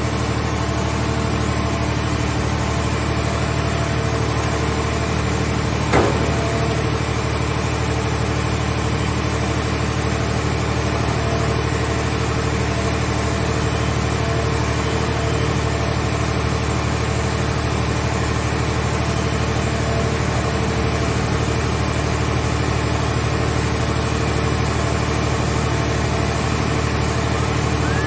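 Mobile scrap car baler's power unit running at a steady idle, with one short metallic knock about six seconds in.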